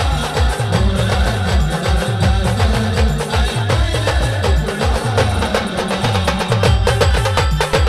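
Adivasi band music: a fast, even beat of deep drum strokes that drop in pitch, several a second, under a melody line.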